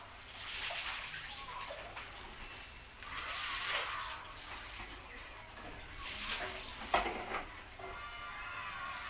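Chicken heart skewers sizzling on a wire grill over hot charcoal, a hiss that swells and fades in waves, with a sharp crackle about seven seconds in.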